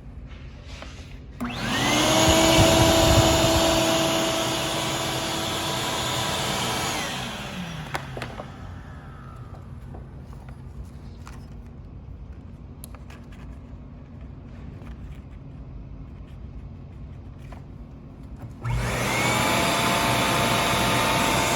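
Ridgid wet/dry shop vacuum switched on: the motor spins up with a rising whine about a second and a half in, runs steadily for about five seconds, then is switched off and whines down. After a long lull with a few faint clicks, a shop vacuum starts up again near the end and keeps running.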